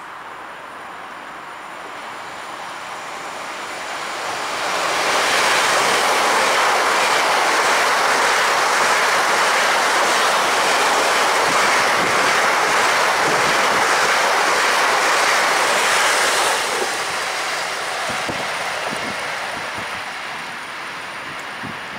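Two coupled PKP Intercity ED161 Dart electric multiple units passing through the station at speed. The rush and rumble of the train on the rails builds over a few seconds, stays loud for about ten seconds, then fades as the train moves away.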